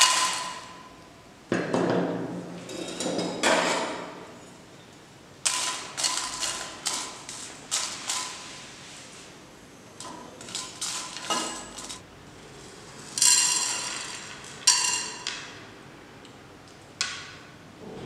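Dried red chillies and whole spices (cloves, peppercorns) dropped into a metal cooking pot and stirred with a spoon: several bursts of rattling taps and clinks, some followed by a short ring from the pot.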